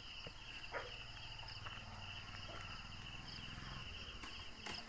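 Crickets chirping steadily in a fast, even pulsing trill, with a few faint short falling calls over it.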